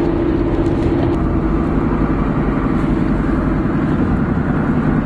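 Car driving at highway speed, engine and road noise inside the cabin as a steady, loud drone; a humming tone in it fades about a second in.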